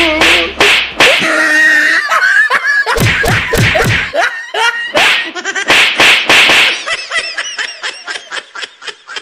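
Repeated slaps and smacks of a beating, mixed with laughter. Near the end the hits give way to a run of lighter, quicker clicks that fade out.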